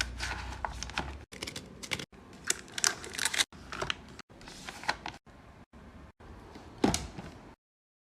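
Clicks, taps and rustles of containers and packaging being handled and set down while restocking a fridge, in short clips that cut off abruptly one after another. A single louder knock comes near the end, then the sound stops dead.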